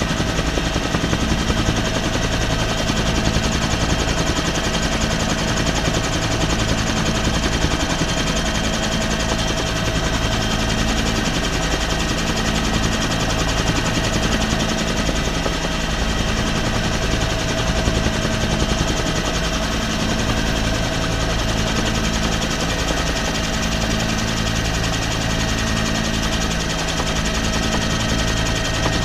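Helicopter in flight heard from inside the cabin with the door open: a rapid, steady rotor beat under a constant turbine whine made of several steady tones, with rushing air.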